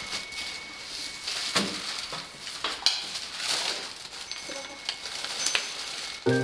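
Rustling with a few sharp clicks, as a hand works the metal buckle of a golden retriever's nylon harness.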